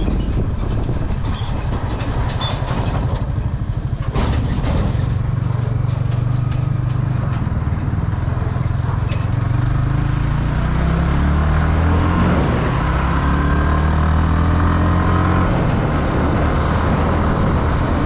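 Motorcycle riding with wind rushing over the microphone, and a loud low engine drone from about four seconds in, strongest while riding close alongside a tanker truck, easing off near the end as it is passed.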